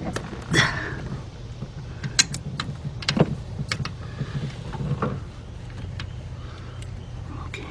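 Scattered metallic clicks and clinks of a bolt and hand tools being handled while a bolt is fitted back into an engine bracket, over a steady low hum.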